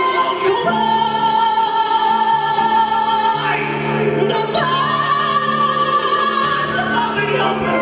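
Live symphonic metal band playing, with an operatic soprano voice holding long high notes over guitars, keyboards and strings. The voice holds one long note, then moves to a higher held note about halfway through.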